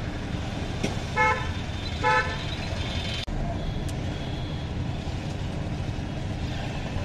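Road traffic heard from a moving vehicle, with a vehicle horn giving two short toots about a second in and again a second later.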